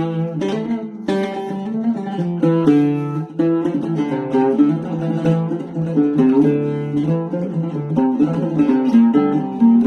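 Oud played solo in an instrumental introduction: a steady run of plucked melodic notes over low ringing strings.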